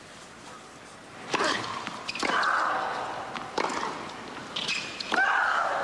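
Tennis rally on a hard court: after about a second of quiet crowd hush, four sharp racquet-on-ball strikes come one to one and a half seconds apart, starting with the serve. Two of the strikes are followed by a woman player's long, shrill, shriek-like grunt.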